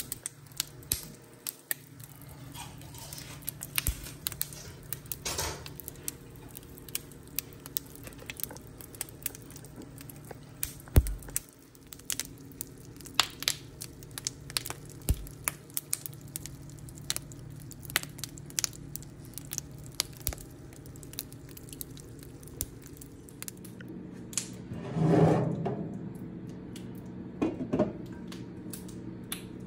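Scattered, irregular sharp crackles and ticks over a low steady hum, with one louder muffled rustle or bump about 25 seconds in.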